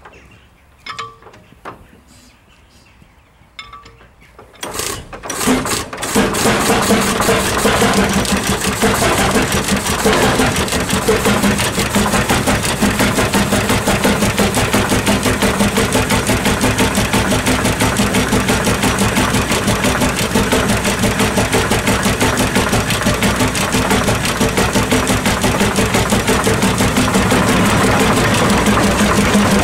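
Engine of a Townsend Bower City antique tractor starting about five seconds in, after a few light clicks, then running steadily at idle with a rapid, even exhaust beat.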